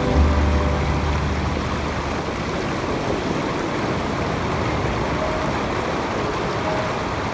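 Sea waves breaking and washing up a pebble shore: a steady, fairly loud rushing noise. A low steady hum stops about two seconds in.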